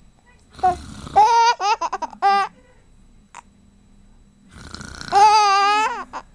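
An adult makes a fake snore twice, and each time a baby answers with laughter. After the first snore comes a quick run of short laughs; after the second comes one long, wavering laugh.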